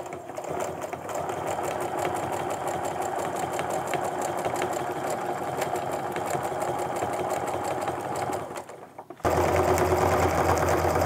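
Baby Lock domestic sewing machine stitching steadily at a rapid needle rate during free-motion ruler quilting. It drops off briefly near the end, then runs again louder with a deeper hum.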